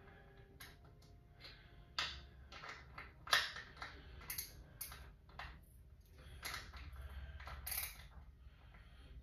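A small cardboard box being handled: irregular light clicks, taps and rustles, with a sharper click about three seconds in.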